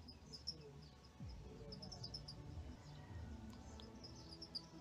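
Faint bird chirps, a few short quick clusters of high notes, over a low background murmur.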